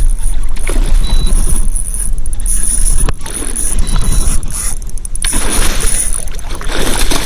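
Wind buffeting the microphone in a steady low rumble, with a thin, steady high whine above it.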